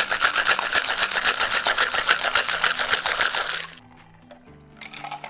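Ice rattling in a two-piece metal cocktail shaker shaken hard, a fast even rhythm that stops about three and a half seconds in.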